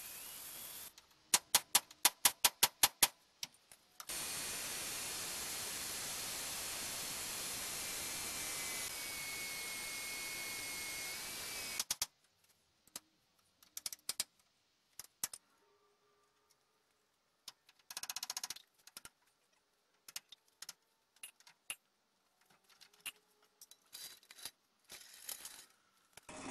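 A handheld metal-cutting tool hissing steadily for about eight seconds, with a faint thin whistle, then cutting off suddenly. Before it comes a quick run of about nine loud, sharp clicks, about five a second; after it, scattered clanks and knocks.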